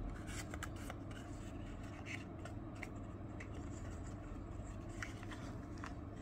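Light handling of a small cardboard box as a little glass bottle is slid out of it: soft rubbing and scattered faint clicks over a steady low hum.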